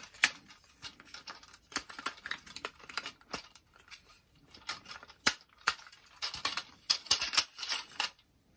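Plastic parts of a Transformers Authentics Optimus Prime toy clicking, snapping and rattling as it is folded by hand from robot into truck mode: many irregular small clicks, with a sharper snap shortly after the start and another about five seconds in.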